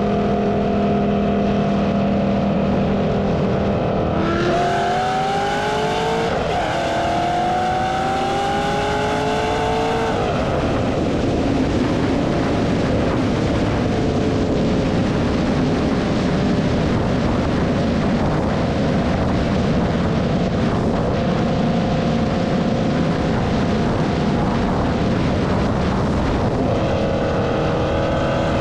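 Cammed LS3 V8 of a Holden Commodore sedan, heard from its exhaust end: cruising steadily, then from about four seconds in it pulls hard through two gears with the revs rising, a shift about two seconds into the pull, and it settles back to a steady cruise with road and wind noise.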